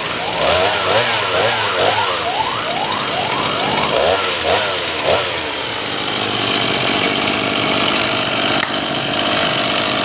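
Stihl MS 162 two-stroke chainsaw revving in quick, repeated throttle blips for the first few seconds, then running at a steady speed for the rest.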